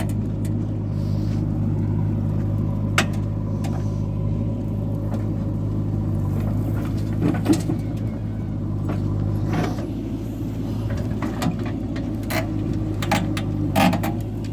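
Diesel engine of heavy farm or earthmoving machinery running steadily with a low hum, with a few sharp clanks scattered through.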